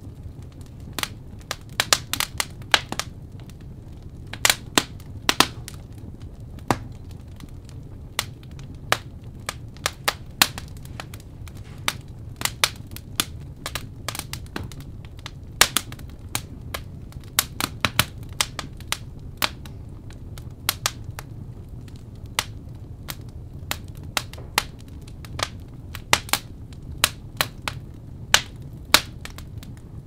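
Wood fire crackling: irregular sharp pops and snaps, several a second at times, over a low steady rumble.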